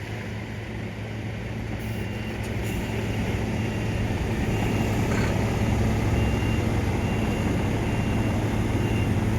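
Heavy construction vehicles' diesel engines running steadily, growing gradually louder, with a reversing alarm beeping repeatedly from a couple of seconds in.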